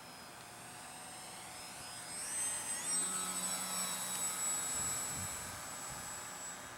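Electric motor and propeller of a Tower Hobbies Millennium Master RC plane running in flight. Its pitch climbs about two seconds in, and it grows louder through the middle, then eases off.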